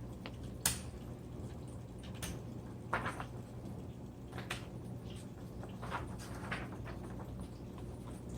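Smith Corona Coronet Automatic 12 electric typewriter switched on, its motor giving a steady low hum, with a handful of separate clacks and clicks at irregular intervals.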